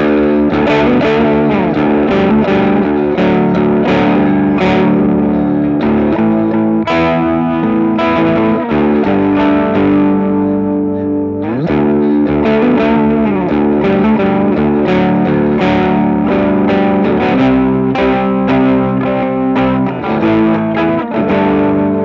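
Mensinger Birdy Firebird-style electric guitar played with distortion: quick picked lead lines over held notes, with a slide in pitch about eleven and a half seconds in.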